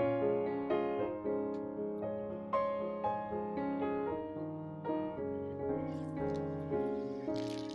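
Gentle solo piano music, single notes and chords struck and left to ring. From about six seconds in, a hiss of water spraying from a garden hose wand rises under the music.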